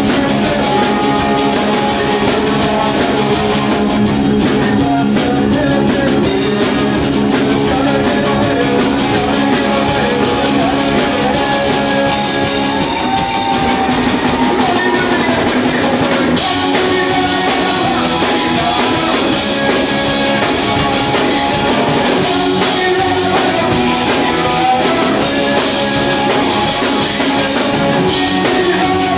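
A live psychobilly band playing with upright bass, drum kit and electric guitar, loud and steady throughout.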